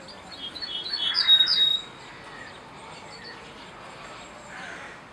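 Female quail calling: a quick run of short, high chirping notes that builds in loudness for about a second and a half, then stops abruptly.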